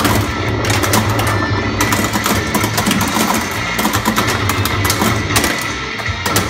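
Williams No Good Gofers pinball machine in play: game music and sound effects from its speakers, with frequent sharp clicks and knocks from the flippers, solenoids and ball.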